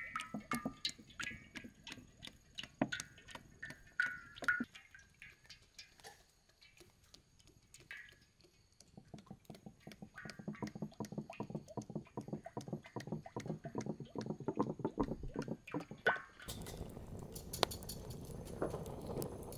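Cooking oil poured from a plastic jug into a large aluminium wok: the stream splatters and ticks on the metal and the jug glugs, turning into a dense fast ticking as the oil pools. Near the end, a wood fire burning under the wok, with a few crackles.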